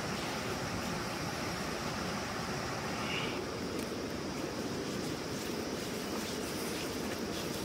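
Steady rushing outdoor ambience, an even noise at a constant level with a faint steady high whine above it.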